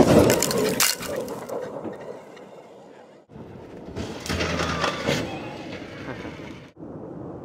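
Electric off-road race truck speeding past on desert gravel: tyres crunching and flinging stones, a crackling rush that is loudest at the start and comes again about four seconds in. The sound breaks off suddenly about three seconds in and again near the end.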